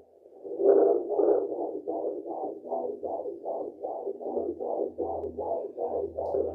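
Fetal heartbeat played through the speaker of a Blue Echo Care handheld fetal Doppler: rapid, even whooshing beats about two and a half a second, around 150 beats a minute. The beats come in about half a second in as the probe finds the baby's heart.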